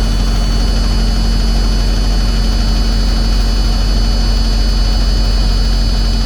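Thermo King TriPac Evolution auxiliary power unit's diesel engine running steadily, with a strong low hum and a faint high whine.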